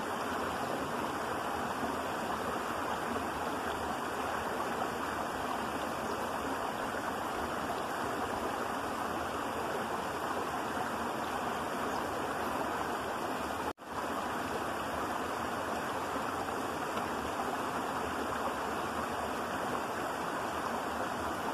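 Shallow creek water running steadily over and between rocks, a continuous babbling rush, with a momentary drop-out about two-thirds of the way through.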